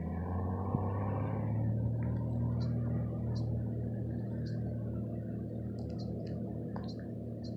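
Piper PA-28-235's six-cylinder Lycoming engine and propeller droning steadily as the plane flies past. The drone swells over the first couple of seconds and then eases a little. Short high bird chirps come and go over it.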